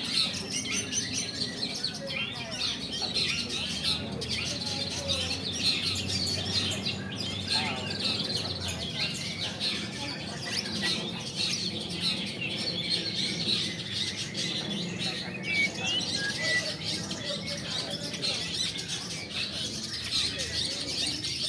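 Many caged long-tailed shrikes singing at once in a dense, overlapping chorus of rapid chirps, trills and chatter.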